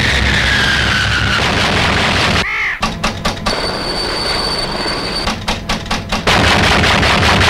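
Abstract sound-collage film soundtrack. Dense hiss with a slowly falling whistle, then a string of short harsh bursts and a steady high whine, with more bursts near the end.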